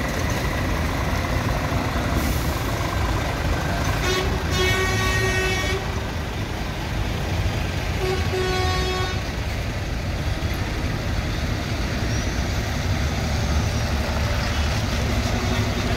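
Heavy lorry diesel engines running as lorries drive out one after another, with a truck horn sounded twice: a long blast of about a second and a half some four seconds in, then a shorter toot about eight seconds in.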